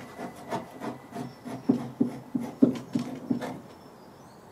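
Swiss Army knife blade scraping and cutting excess dried glue off the edge of a wooden canoe hull, in a string of short strokes, about two to three a second. The strokes are loudest in the middle and grow faint near the end.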